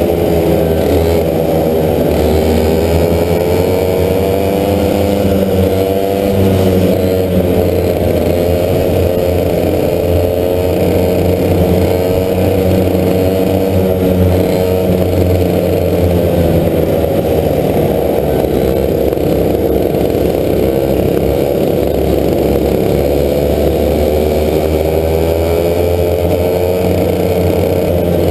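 Two-stroke racing kart engine at high revs, heard onboard the kart. Its pitch drops when the kart slows for corners, about two seconds in and again around two-thirds of the way through, then climbs back as it accelerates.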